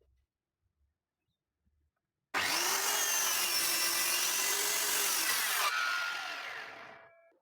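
Handheld circular saw cutting through wood. The cut starts abruptly about two seconds in and runs steadily for about three seconds. The saw then spins down, its whine fading over about a second and a half.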